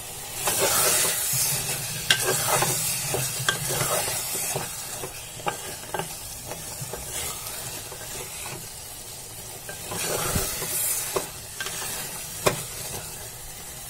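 A wooden spatula stirring and scraping chana dal and spinach in an aluminium pressure cooker, the mixture sizzling as it sautés, with scattered knocks of the spatula against the pot's sides.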